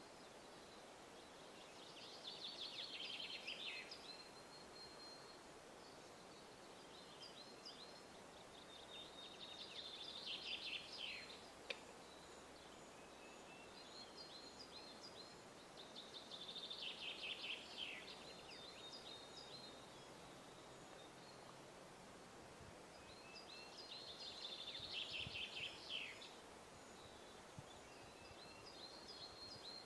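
Male western capercaillie singing its courtship display song. Four phrases come about seven seconds apart, each a run of dry clicks that runs into a rapid grating, scraping burst of about two seconds. The clicks of a fifth phrase begin near the end.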